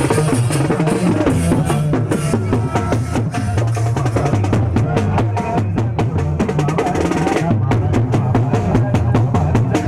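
Indian wedding band playing: snare drums beaten in a fast, dense rhythm over a steady deep bass, with a man singing into a microphone.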